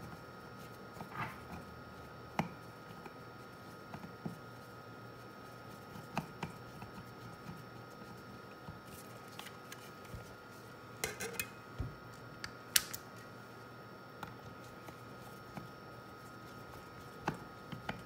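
Hands handling an opened two-way radio's metal and plastic case on a workbench: scattered light clicks and taps, with a few sharper clicks near the middle. A faint steady tone hums underneath.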